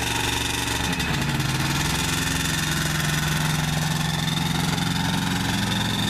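CGS Hawk ultralight's engine and pusher propeller running at low power while taxiing. The pitch wavers briefly about a second in, then holds steady.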